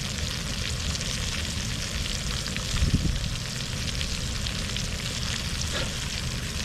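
Rainbow trout frying in butter in a pan: a steady sizzle with fine crackling pops, over a low rumble, with a brief low thump about three seconds in.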